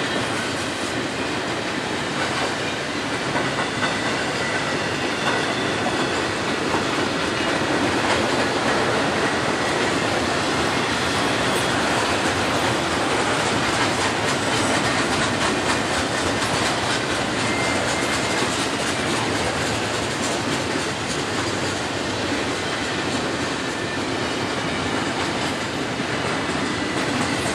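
Double-stack intermodal freight train's well cars rolling past: a steady rumble and clatter of steel wheels on rail, with a faint high wheel squeal now and then.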